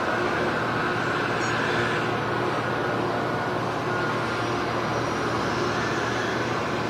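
Boat engine running steadily: a low engine drone with a faint higher whine over it.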